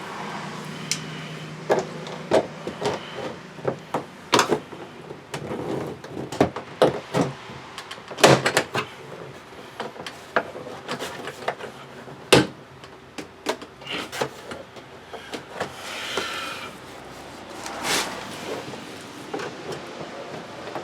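Plastic and metal trim tools prying at a GMC Yukon Denali's interior door panel, which is held on tight: irregular sharp clicks and knocks of plastic and metal with scraping in between, two knocks louder than the rest.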